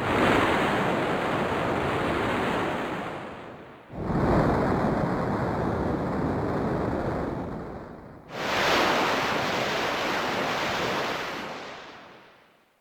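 Three bursts of steady rushing noise, each cutting in suddenly, holding for about three seconds and then fading out over about a second, with faint high whining tones on top. This is raw source material auditioned for a beam rifle sound effect.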